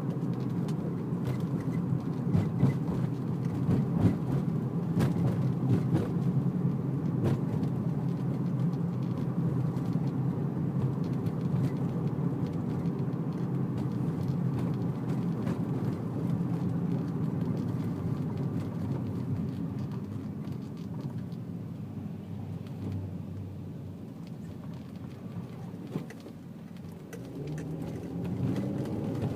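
Sharp, irregular clicks from the rear suspension of an Infiniti G35 coupe driven over bumps, on top of steady road and engine rumble, loudest a few seconds in. The owner suspects a rear control arm.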